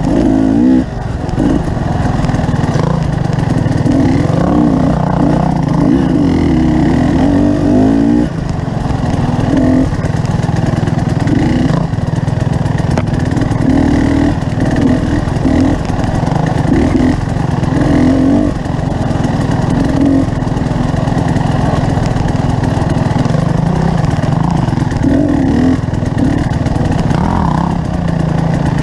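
Motorcycle engine running under way, its note shifting up and down with the throttle.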